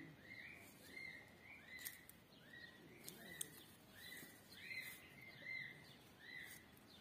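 Newly hatched chicks peeping faintly, a steady run of short rising-and-falling peeps about two a second, with a few light clicks from the egg and nest being handled.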